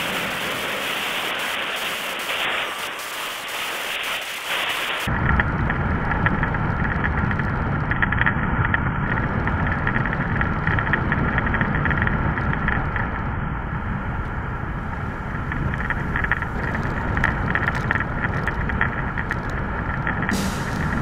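Motorcycle riding noise: wind rushing over the helmet-mounted microphone, with the engine running underneath. About five seconds in, the sound changes suddenly from a hissy rush to a heavier low rumble.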